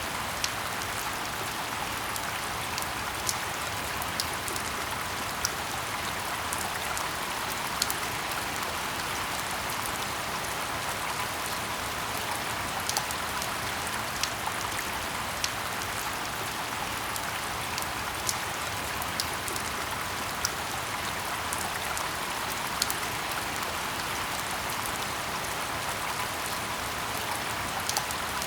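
Steady rain falling in a forest: an even wash of rain with louder single drops landing here and there, a second or more apart.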